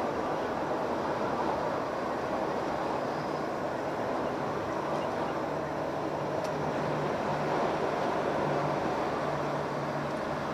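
Steady engine drone and road noise inside a Hino Profia truck's cab while cruising, with a low even hum under the rushing noise.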